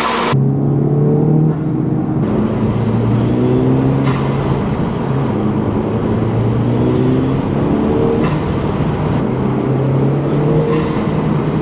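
Honda Civic Type R FL5's turbocharged 2.0-litre four-cylinder pulling hard through the gears, heard from inside the car with a PRL high-volume intake fitted. A brief psh of intake air comes at each of three gear changes, about 4, 8 and 11 seconds in, over steady road noise.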